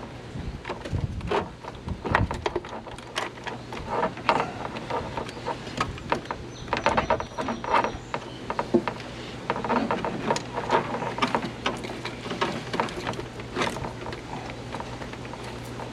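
Irregular clicks, clanks and knocks of hand tools and metal parts being worked during a nitrous kit install, with a steady low hum that comes in about two seconds in.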